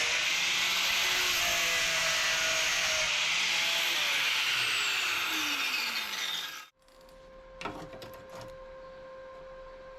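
Angle grinder running at speed on metal, then winding down with a falling pitch once the trigger is released. The sound cuts off abruptly about seven seconds in, leaving a quieter steady hum and a single knock.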